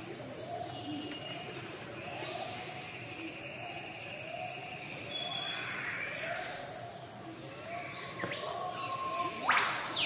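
Tropical forest bird chorus. A low call repeats about once a second throughout, over higher chirps. A quick run of high ticks comes around the middle, and loud, steeply falling calls come near the end.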